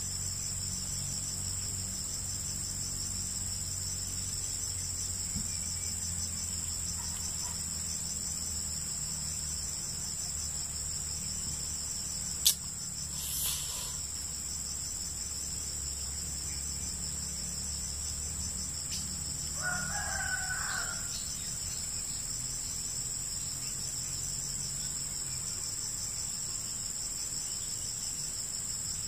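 Steady, high-pitched, pulsing chorus of insects, with a single sharp click about twelve seconds in and a rooster crowing briefly and faintly about twenty seconds in.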